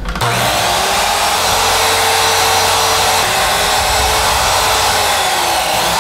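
Compact electric miter saw running at speed as its blade slices through carrots and a cucumber. The motor starts just after the opening, and its pitch dips briefly twice along the way.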